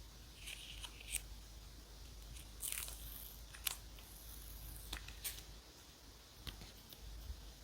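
Quiet paper and stationery handling on a journal page: a few short scratchy rustles with scattered small clicks.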